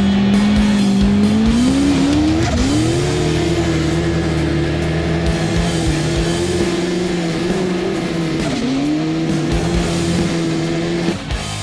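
Turbocharged snowmobile engine running hard under load while climbing. Its pitch rises about two seconds in, holds high, and dips briefly once before it cuts off near the end.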